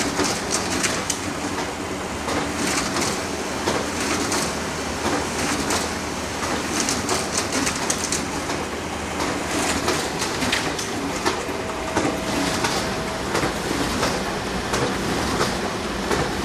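Canon photocopier running: a steady mechanical whir with frequent, irregular clicks and clacks.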